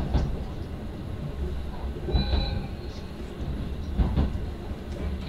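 Electric commuter train running, heard from inside the passenger car as it nears a station stop: a steady low rumble with a few sharp wheel clicks. About two seconds in there is a brief high squeal.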